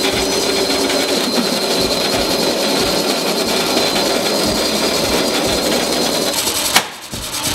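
Motor-driven grain mill running, cracking malted barley: a loud, even grinding noise with a faint high whine, breaking off sharply about seven seconds in.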